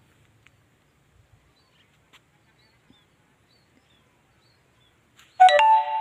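Near silence with a few faint, high chirps. About five seconds in, a chime sound effect starts suddenly: several steady ringing tones sounding together.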